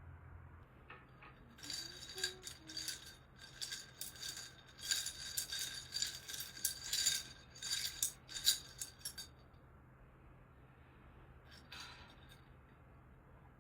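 Rapid clinking and rattling of hard objects with a bright ringing tone, starting about two seconds in and stopping about nine seconds in, then a few faint clinks near the end.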